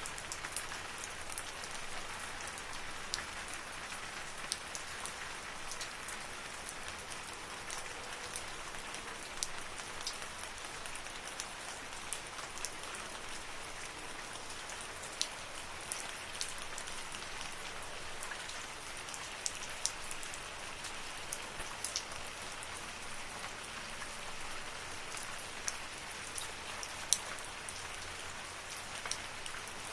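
Steady rain falling in a forest: an even hiss with frequent sharp ticks of single drops hitting close by.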